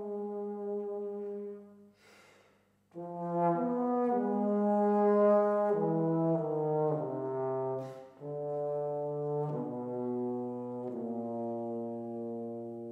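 Solo trombone playing a slow, unaccompanied melody in sustained notes. It breaks off for a breath about two seconds in, then works downward to a long held low note near the end.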